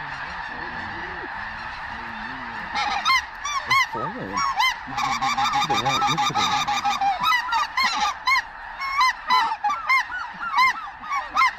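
A huge flock of snow geese calling: a steady blur of distant honking, with many separate, closer high honks breaking out on top of it from about three seconds in.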